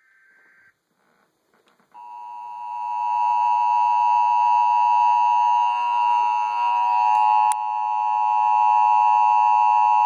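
Emergency weather alert attention tone played through a TV or radio speaker: a loud, steady electronic tone that comes in about two seconds in, swells over the next two seconds, and cuts off abruptly. It is the signal that a warning message is about to be read.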